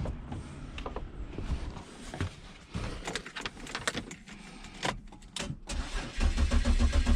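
Scattered clicks and knocks, then about six seconds in the BMW M54 straight-six's starter cranks the engine over with a loud, even pulsing that does not catch: a crank-but-no-start.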